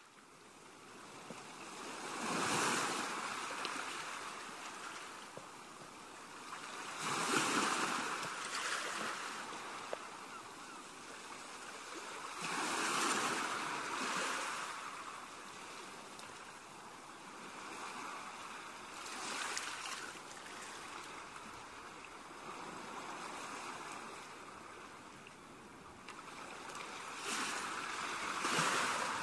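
Ocean waves surging and washing in, swelling and fading every five seconds or so.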